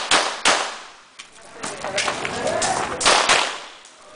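Pistol shots fired by a competitor during a practical shooting stage, unevenly spaced, each sharp crack trailing off in a short echo. The loudest are one about half a second in and a quick pair about three seconds in.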